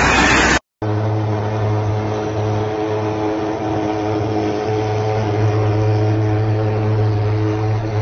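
Disinfectant fogging machines running with a steady engine drone. A brief loud hiss cuts off abruptly under a second in, before the drone begins.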